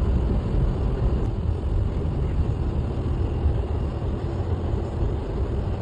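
Steady low rumble of a vehicle driving, with no distinct knocks or changes.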